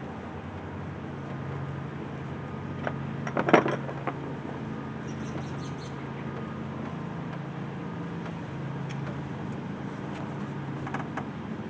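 Truck engine idling steadily, with a few sharp clicks and knocks of handling; the loudest comes about three and a half seconds in.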